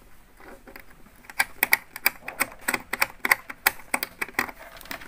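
Sharp, irregular plastic clicks and taps from a speaker's binding-post terminal, as speaker wire is pushed in and the plastic terminal knob is turned and tightened by hand. The clicks start about a second and a half in and come about three or four a second.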